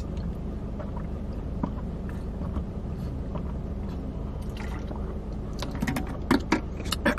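Swallowing gulps of a drink from a plastic tumbler, over the steady low hum of the car. Near the end a few sharp clicks and mouth sounds as the bottle comes down.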